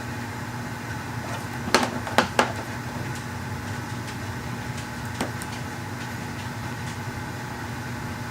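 Steady low hum of a water heater running. Three sharp clicks about two seconds in, the loudest sounds here, and one more softer click about five seconds in.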